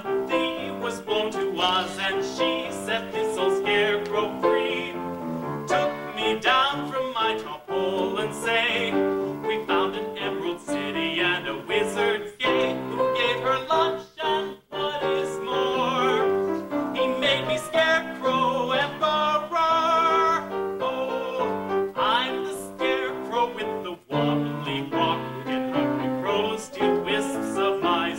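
A man singing a light comic song to live piano accompaniment.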